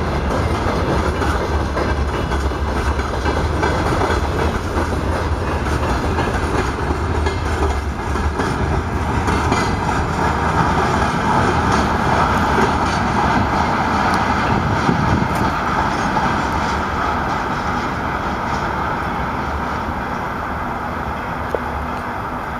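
Freight train wagons rolling past, their wheels clattering steadily over the rail joints. The sound eases off a little toward the end.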